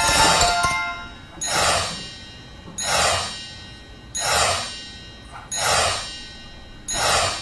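Cartoon soundtrack music made of a falling whooshing sound that repeats evenly about every second and a half, opening with a sharp hit.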